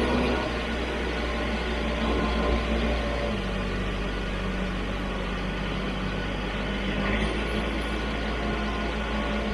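Tractor engine running steadily as the tractor drives, heard close up from the operator's seat.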